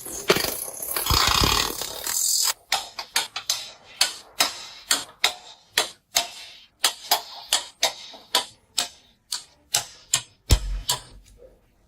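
Workshop tool work: a short burst of dense noise, then a long run of sharp, separate clicks about two or three a second.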